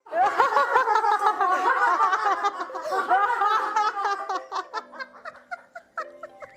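Several people laughing hard at once, their voices overlapping, dying away after about four and a half seconds as music with held notes comes in.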